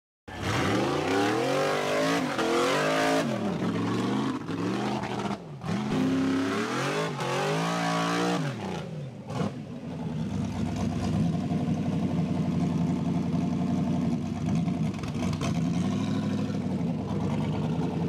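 Off-road rock bouncer buggy's engine revving hard up and down over and over while climbing a steep dirt hill. About nine seconds in it drops back and settles into a steady, lower running note.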